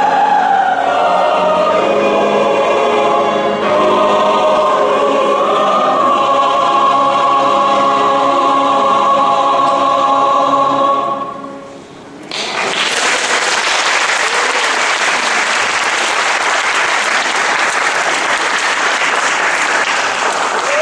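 Mixed church choir singing, settling into a long held final note that fades out about eleven seconds in. A second later audience applause breaks out, loud and dense.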